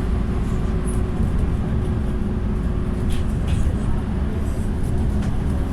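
Steady low rumble of a vehicle running, with a faint steady hum and a few brief high squeaks around the middle.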